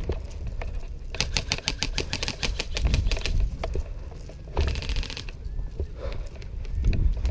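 Airsoft gun firing on full auto in two bursts: a rapid run of clicks, about ten a second, lasting some two seconds, then a shorter, faster burst about five seconds in.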